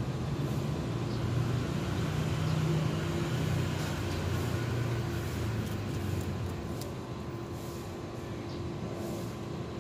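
A steady low mechanical hum with a faint steady tone above it, louder for the first half and easing off after. A few faint clicks come from kittens chewing shrimp shells.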